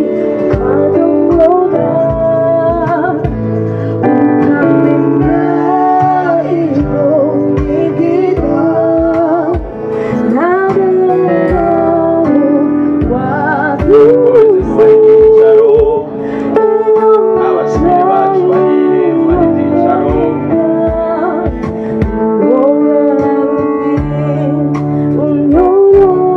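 Live gospel band playing: electric keyboard and acoustic guitar over a steady low beat, with women singing into microphones.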